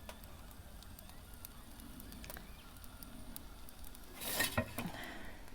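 Faint crackling of a lumpwood charcoal fire in a pizza oven, scattered small ticks over a low hiss, with a brief louder scrape or clatter about four seconds in.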